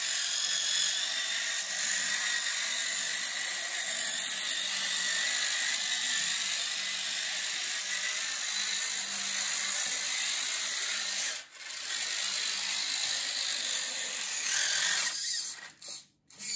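Small electric drive motor and its gear train whining steadily as a homemade RC four-wheel tractor drives. It cuts out for a moment about eleven seconds in, then stops and starts a few times near the end.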